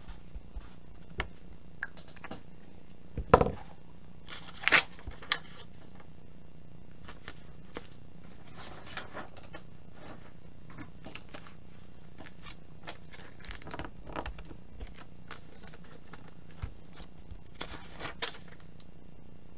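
Small desk-handling noises, paper or card rustling and light scratching, scattered through, with one loud knock about three seconds in and a short scrape a second and a half later, over a steady low hum.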